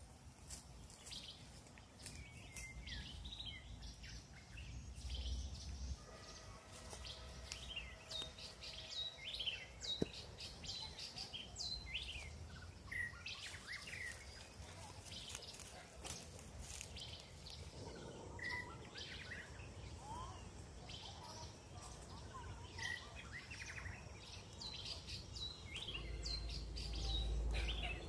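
Wild birds chirping and calling, many short calls scattered throughout, over a low outdoor rumble that grows stronger near the end.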